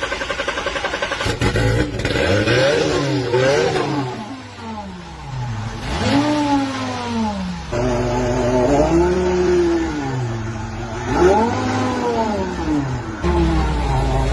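A car engine runs with a pulsing beat, then is revved several times, its pitch climbing and dropping back with each rev.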